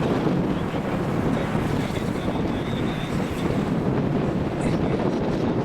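Steady storm wind blowing across the microphone, a continuous low rushing noise with no breaks.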